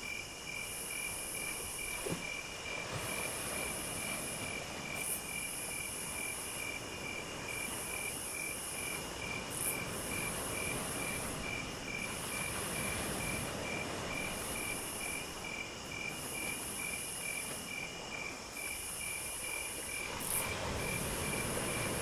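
Insects calling: a steady, evenly pulsing chirp together with a very high buzz that comes in repeated bouts of about a second, over a low background hiss.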